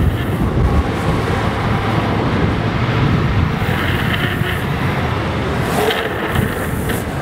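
Steady rush of wind and wheels rolling over asphalt at speed on a downhill skateboard run.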